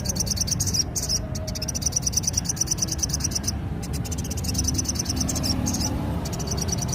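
Sogon bush cricket (katydid) calling: long trains of rapid buzzing pulses, high-pitched, in phrases a second or two long broken by brief pauses, the full intense call that keepers call 'nembak'.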